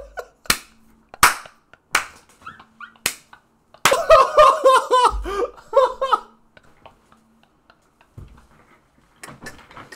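Five sharp hand smacks, roughly a second apart, then a loud burst of laughter lasting about two seconds, with faint scattered sounds near the end.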